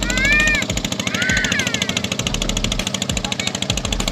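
Small wooden fishing boat's engine running at speed as it passes, a rapid, even knocking pulse over a low rumble.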